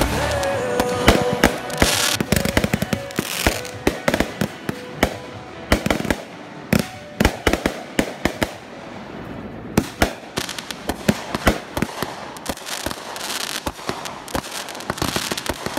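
Consumer aerial fireworks firing in quick succession: a dense run of sharp launch pops and crackling bursts. The shots thin out for a few seconds around the middle, then pick up again.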